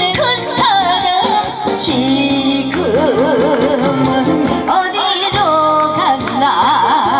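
A woman singing a Korean song into a microphone over instrumental accompaniment, amplified through PA speakers; her held notes waver with wide vibrato.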